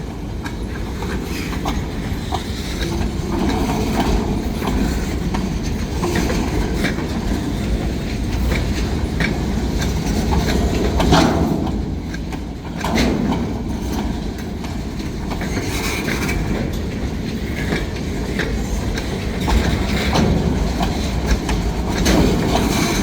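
Train cars rolling past steadily, their wheels clicking over the rail joints in an uneven clatter over a continuous low rumble.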